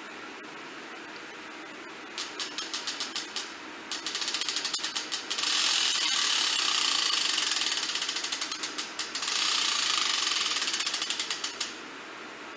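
E*thirteen LG1+ bicycle freehub clicking as the wheel spins freely: its pawls ratchet in runs that start as a fast, dense buzz and slow into separate clicks as the wheel coasts down. The hub is spun several times, once briefly about two seconds in, then longer, with a fresh spin about nine seconds in that winds down and stops near the end.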